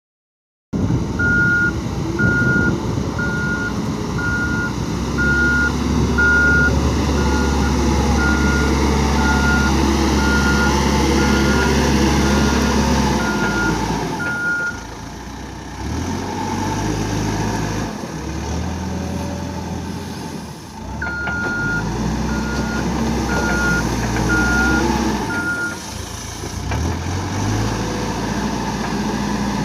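Caterpillar 428 backhoe loader's diesel engine running under working load, with its backup alarm beeping about once a second during two stretches of reversing, a long one at the start and a shorter one near the end.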